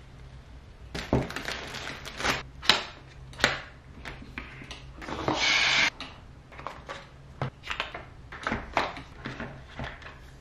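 Apple Watch packaging being handled and opened: plastic wrap crinkling and the cardboard box knocking, clicking and sliding in short bursts, with a louder scrape lasting about a second midway.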